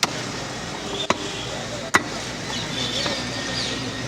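Butcher chopping beef with a heavy blade: three sharp chops about a second apart, over a steady market background.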